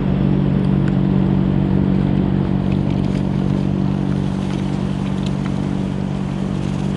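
Outdoor propane burner under a stainless steel boil pot, running with a steady low hum as the water heats.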